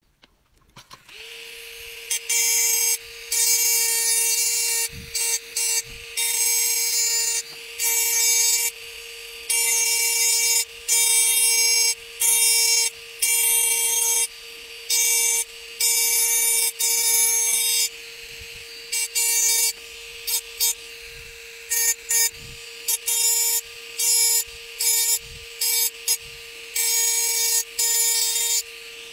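Handheld rotary engraving pen switched on about a second in and running with a steady whine, its small burr grinding into glass in repeated strokes, each a loud high hiss lasting up to about a second and a half with short pauses between.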